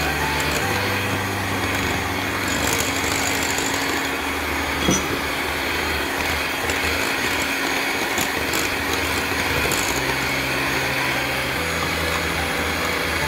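Electric hand mixer running steadily, its twin wire beaters whipping egg into creamed butter-and-sugar batter in a glass bowl, with one brief knock about five seconds in.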